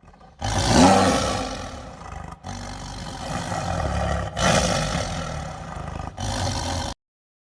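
A large animal roaring, heard as four abruptly joined pieces that cut off suddenly near the end.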